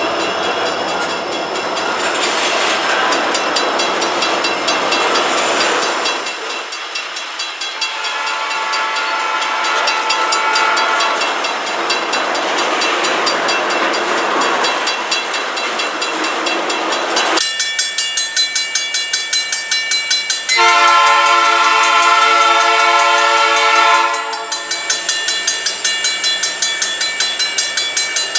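Freight train of tank cars and hoppers rolling past, wheels rumbling and clicking over the rail, with a locomotive horn sounding faintly. Then a grade-crossing bell rings steadily at about four strikes a second, and the approaching lead locomotive blows its chime horn, a P3, in one long blast of about three seconds.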